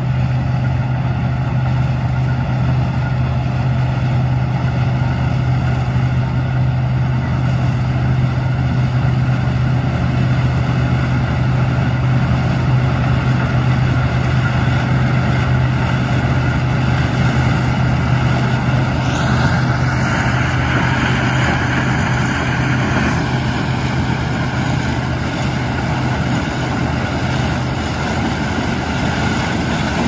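Combine harvester running steadily while harvesting corn: an even, low engine drone, with a brief higher-pitched swell about two-thirds of the way in.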